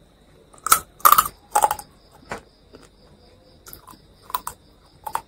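Close-up chewing of a mouthful of spiced fried frog meat, with a run of loud crunches in the first two seconds and softer chews after. A cricket chirps steadily in the background.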